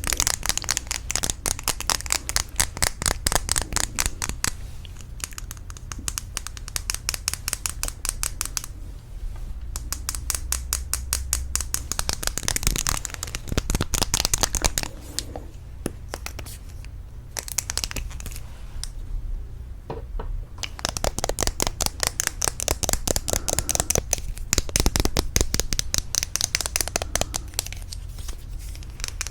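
Rapid tapping on lipstick cases, many quick taps a second in long runs, with short breaks about nine seconds in and again around sixteen to twenty seconds in.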